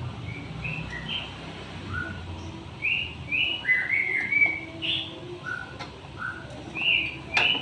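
Small birds chirping in short, separate calls, several a second at times. A sharp click comes near the end.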